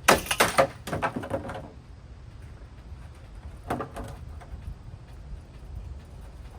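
Clattering knocks and rattles of ceiling fan parts being handled: a quick burst of them at the start and a shorter one about four seconds in.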